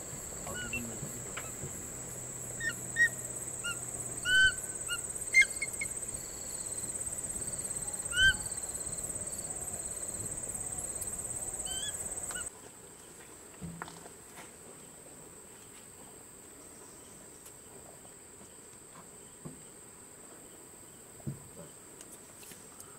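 Steady high-pitched insect drone with scattered short bird chirps. About halfway through it drops suddenly to a quieter ambience, with the insect tone fainter and only a few soft clicks.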